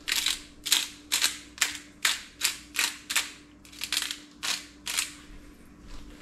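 Hand-twisted pepper grinder grinding, a rhythmic run of gritty clicks at about two twists a second that stops about five seconds in.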